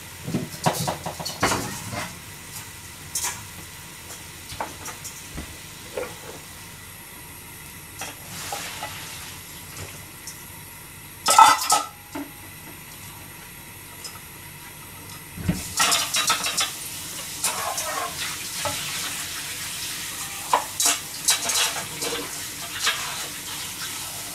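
Metal pots, a pan and cooking utensils clanking and knocking in scattered bursts as a pan of parboiled beef tendon is handled, with a steady hiss for a few seconds in the middle. There is one loud clatter about 11 seconds in and a busier run of clinks from about 15 seconds.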